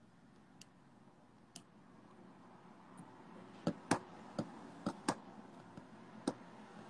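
Irregular clicking of computer keys or a mouse: about eight short, sharp clicks, a couple in the first half and most of them bunched together after about three and a half seconds.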